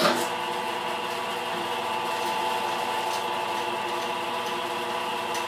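Force International knee mill's spindle motor switched on, starting suddenly and then running steadily with a hum of several steady tones.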